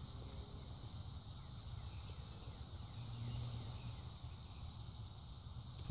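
Steady outdoor background noise: a low rumble and a steady high-pitched hum, with a few faint short chirps near the middle.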